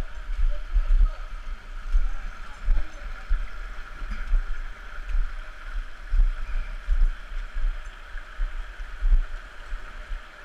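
Steady rush of creek water cascading over rock, with irregular deep thumps every half second to a second.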